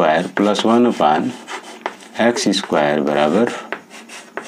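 Chalk scratching and tapping on a chalkboard as an equation is written, under a man's voice speaking Hindi.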